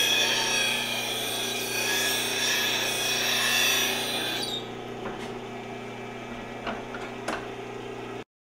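Delta bench grinder's wheel grinding a steel woodturning gouge held in a sharpening jig: a steady rasping hiss of the tool on the wheel over the motor's hum. About four and a half seconds in the grinding stops, leaving the motor humming with a few light clicks, then the sound cuts off.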